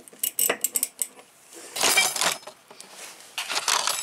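Steel hand tools clinking and rattling: a socket, extension and ratchet handled against a mower deck's blade spindle nut, with several sharp clicks in the first second and longer metallic clatters near the middle and at the end.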